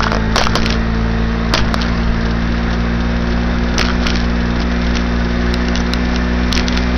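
Baja SC50 moped's small 50cc engine running at a steady pitch while riding, under a steady rushing hiss. Scattered sharp clicks and knocks come through it.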